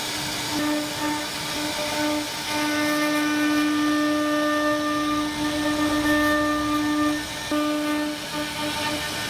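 CNC router spindle whining at a steady high pitch as its bit carves relief patterns into a wooden panel, over a constant hiss of cutting. The whine breaks off briefly several times, mostly near the start and again near the end.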